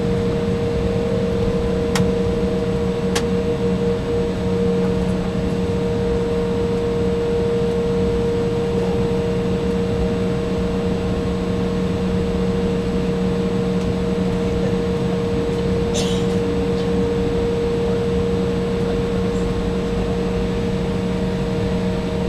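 Cabin noise of an Embraer 175 taxiing onto the runway with its GE CF34-8E turbofans at idle: a steady hum and rumble with a constant whine, cabin air hiss underneath. Two light clicks come about two and three seconds in, and a brief hiss about sixteen seconds in.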